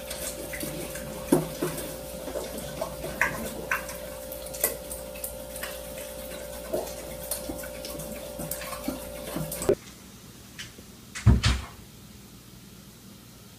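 A spoon clinking and scraping against a small cup, a sharp click every second or two over a steady hum and hiss. The sound cuts off about ten seconds in, and a soft thump follows a little later.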